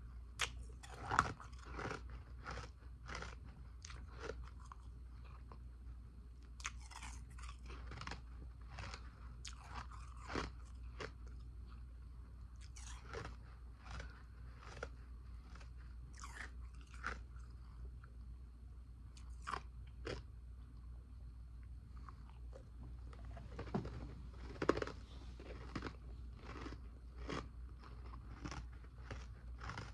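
Close-miked ice eating: a person biting and chewing ice dumplings of powdery and Sonic-style nugget ice, a run of sharp, irregular crunches about one or two a second. The loudest bites come about a second in and again past the three-quarter mark.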